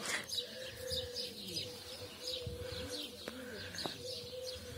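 Garden birdsong: small birds chirping over and over in short high notes, with the low cooing of a dove now and then and a faint steady hum underneath.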